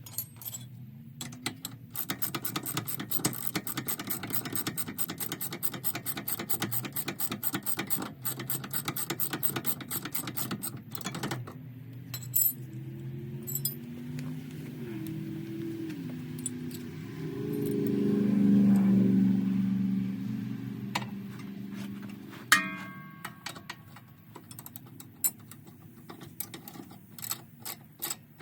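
Socket ratchet wrench clicking rapidly in a long run while tightening the 12mm caliper bolts, then clicking again in shorter spells near the end. In between, a louder droning sound whose pitch steps up and down swells and fades.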